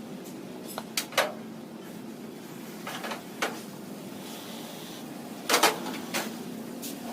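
Irregular knocks of a hand hammer on the pickup bed's sheet-steel panels during manual panel beating. There are a few single blows and a louder double knock about halfway through, over a steady low hum.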